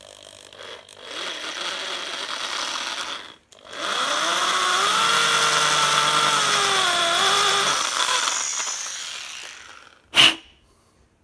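Power drill spinning an end mill that cuts a flat face on an engine block, in two runs with a brief stop between them; in the second, longer run the motor's pitch rises, holds, then drops as it slows and fades. A single sharp click near the end.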